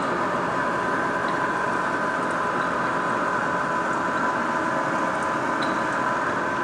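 Steady machine-shop background hum with a constant whine, unchanging throughout.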